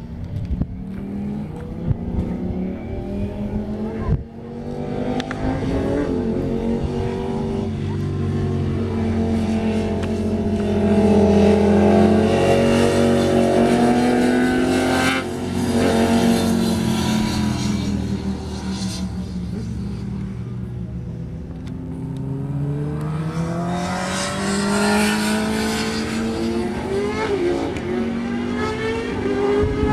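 Sport motorcycles lapping a race track, their engines revving hard. The pitch climbs through each gear and drops at the shifts, rising and falling as the bikes pass, loudest about halfway through.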